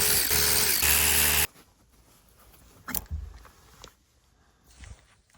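Power driver running and spinning out a fastener with a steady motor whine, stuttering twice before it stops about a second and a half in. A sharp knock follows about three seconds in.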